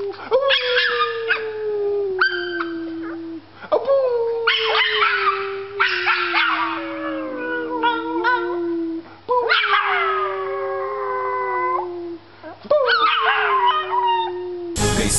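Small dog howling: about four long howls, each sliding slowly down in pitch, with short breaks between them. Music cuts in abruptly just before the end.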